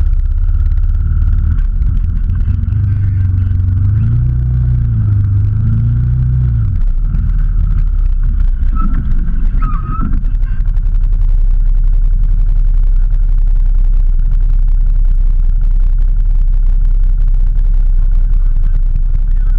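Off-road 4x4's engine heard close up, revving up and down between about two and seven seconds in as it works at a steep dirt climb, then running steadily at low revs.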